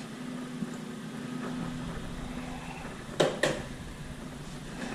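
Two sharp metal clicks about three seconds in, a quarter second apart, as a part is handled and set onto the oven door hinge, over a steady low hum.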